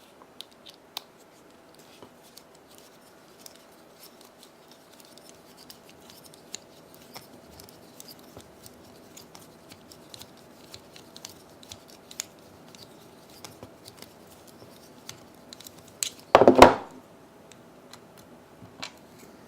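Small metal clicks and light scrapes from tools and parts while a folding knife is being taken apart, with one louder clatter about sixteen seconds in.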